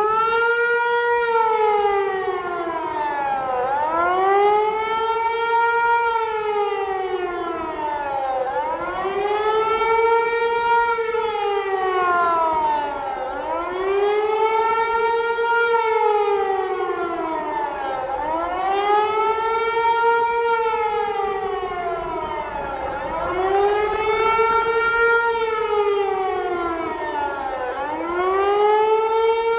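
Hörmann HLS 273 electronic siren sounding the former Iraqi air raid alarm: a wailing tone that comes on suddenly, climbs quickly and falls away more slowly, over and over about every four and a half seconds. The signal warns of acute danger from air attack.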